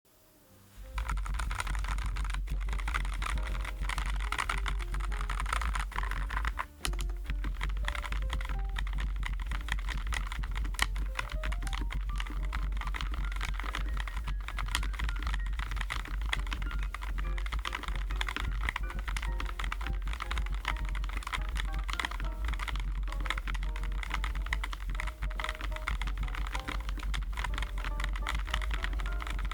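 Fast continuous typing on a Keychron J9 low-profile mechanical keyboard with Keychron Milk POM switches, a dense stream of soft key clicks that starts about a second in, with a brief pause near seven seconds. Background music plays underneath.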